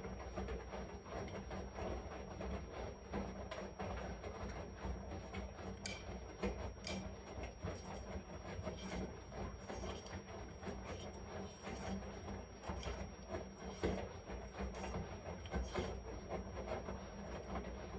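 Washing machine running: a steady low hum with irregular soft knocks and rubbing sounds from the turning drum and its load.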